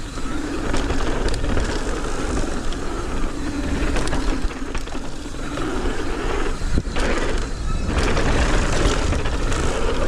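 Mountain bike rolling fast down a dirt trail: a steady hiss of tyres on the dirt under a heavy rumble of wind on the microphone, with a few sharp clicks and rattles from the bike.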